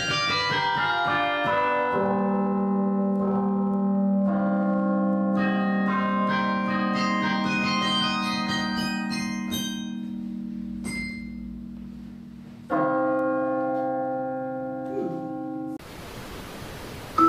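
Carillon bells playing: quick runs of struck notes that ring on and overlap, between held chords. Near the end the music cuts off abruptly, leaving a steady hiss.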